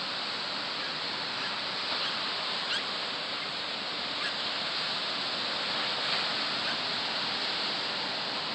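Steady wash of ocean surf, with a few faint short bird calls over it.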